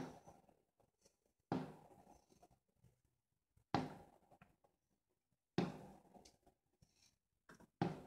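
Firework bangs: five sharp reports about two seconds apart, each followed by a decaying echo.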